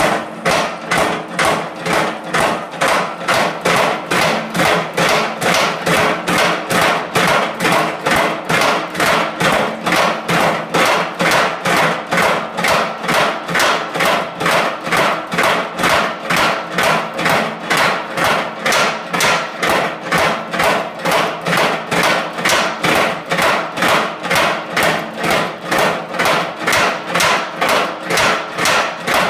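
Mechanical power hammer pounding a red-hot steel bar with steady, evenly spaced blows, about two a second, its leaf-forming dies flattening the hot end into a leaf.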